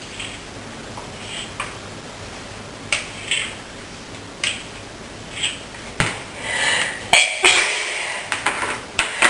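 A woman sniffing repeatedly with a tickly, snuffly nose, short sniffs about once a second, among small clicks and taps of things being handled; from about six seconds in the sniffs and clicks come faster and louder.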